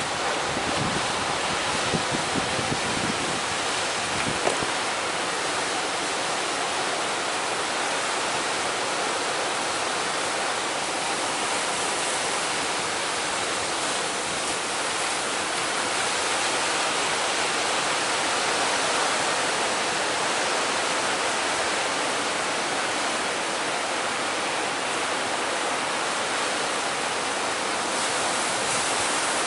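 Heavy surf breaking and strong wind: a steady, even rush of noise, with a low fluttering rumble through the first few seconds.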